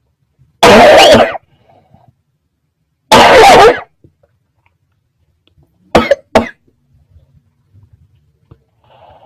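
A person coughing loudly: two long, harsh coughs about two and a half seconds apart, then two short quick coughs about six seconds in.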